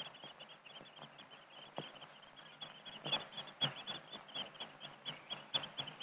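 Oystercatchers piping in their courtship display: a fast, unbroken run of short, high piping notes, several a second, growing louder from about three seconds in, with a few sharp clicks over it.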